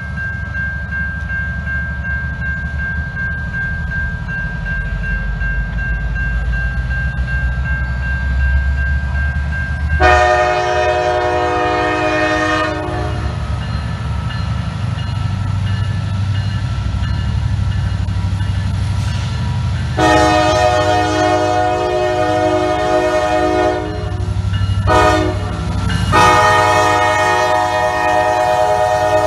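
Norfolk Southern freight train approaching a grade crossing behind its lead locomotive, EMD SD70ACe NS 911, with the diesel engines rumbling and a steady high ring from the crossing signals in the first ten seconds. The locomotive's multi-chime air horn then sounds the grade-crossing signal: long, long, short, long.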